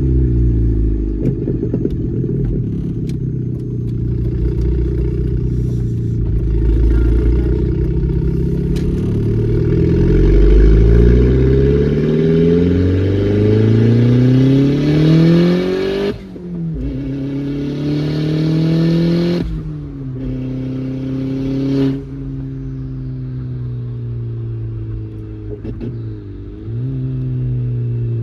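Manual-transmission car's engine pulling hard from a clutch launch. The revs climb, then drop sharply at three upshifts in the second half before settling into steadier running.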